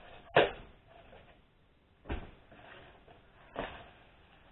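Cardboard packaging of a car speaker being opened and handled by hand: three sharp knocks about a second and a half apart, the first the loudest.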